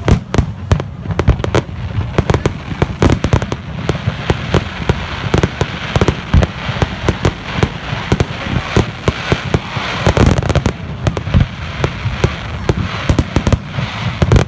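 Aerial fireworks display: a dense, rapid run of booms and sharp bangs from exploding shells, several each second.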